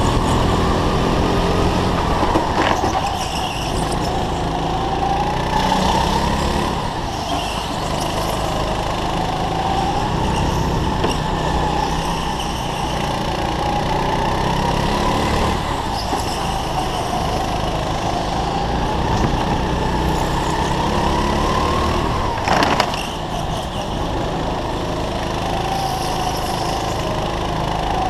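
Go-kart engine heard from the driver's seat, its pitch repeatedly rising and falling as the kart accelerates down the straights and lifts for the corners. A single sharp knock sounds about three-quarters of the way through.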